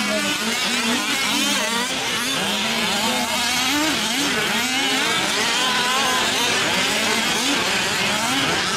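Several 1/5-scale RC off-road trucks' small two-stroke gas engines revving up and down at once while racing, their pitches rising and falling over one another.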